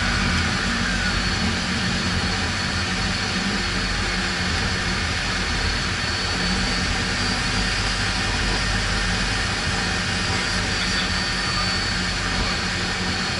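Cessna Citation 501's twin Pratt & Whitney JT15D turbofans running steadily: a constant high whine over a broad rush and a low hum.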